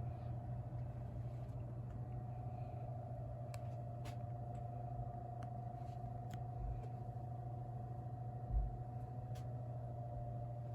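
Steady low hum of room tone with a faint constant tone above it, a few small faint clicks, and one soft low bump about eight and a half seconds in.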